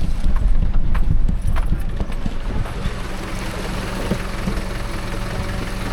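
Fuso Canter 4x4 truck's diesel engine pulling steadily in second gear through a rocky river crossing. Tyres knock over rocks during the first second or so, then water rushes and splashes around the wheels.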